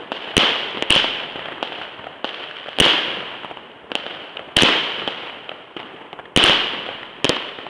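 Fireworks: aerial shells bursting overhead with sharp, loud bangs, about six strong ones plus a few fainter, each trailing off in a fading hiss.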